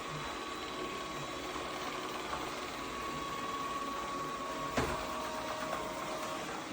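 Tapo RV30 Max robot vacuum running: a steady motor whir with a thin, even tone over it, and a single sharp knock about five seconds in.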